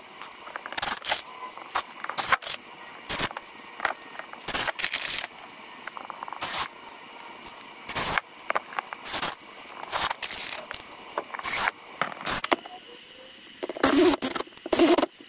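Cordless drill driving screws into plywood and wood framing in many short, irregular bursts, with scrapes and clatter in between.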